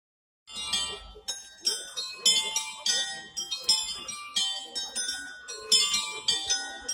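A miniature ring of bells being rung, the bells striking one after another in a quick, steady rhythm of several strokes a second, each note ringing on into the next. The ringing starts about half a second in after a brief dead silence.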